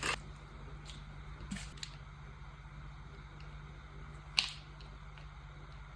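A few faint clicks and taps of handling over a steady low hum, with one sharper click about four and a half seconds in.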